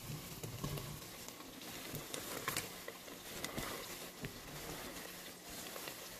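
Chopped onion sizzling faintly in hot melted butter in a stainless steel pot, with small clicks and taps as more onion is pushed off a cutting board into it.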